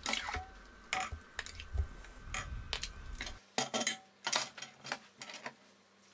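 Metal ladle clinking and scraping against a stainless steel pot and a glass jar while hot tomato sauce is ladled into the jar: a dozen or so short, irregular knocks.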